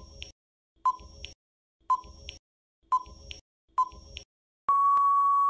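Countdown timer sound effect: five short beeps about a second apart, then one long steady beep as the count reaches zero.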